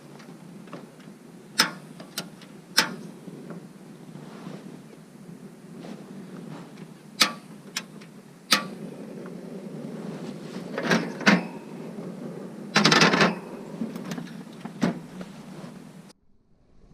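A freshly lit fire of birch bark and dry balsam fir twigs burning: a steady rush of flame with sharp pops and crackles every second or few, and a denser run of crackling about thirteen seconds in. The sound cuts off suddenly near the end.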